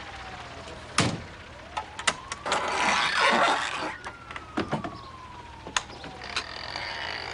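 A siren wailing slowly down, up and down again, under clicks and clunks from an ambulance's rear doors and handles being worked, with a loud clunk about a second in. A rush of noise around the middle is the loudest sound.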